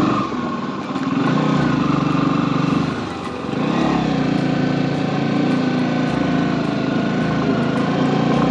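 Motorcycle engine running while riding, its note dipping briefly twice, about half a second in and again around three seconds in, as the throttle eases.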